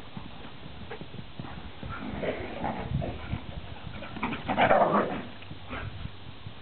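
Greyhounds running and play-fighting on grass: irregular paw thuds and scuffling, with a louder burst about four and a half seconds in as two of the dogs tangle.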